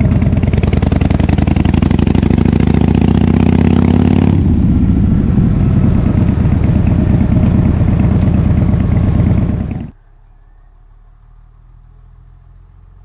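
Harley-Davidson Fat Bob FXDF V-twin running loud through a KessTech exhaust, rising in pitch as it accelerates for about four seconds. It then drops to a lower, steady run as the throttle closes. About ten seconds in the engine sound cuts off abruptly, leaving only a faint low hum.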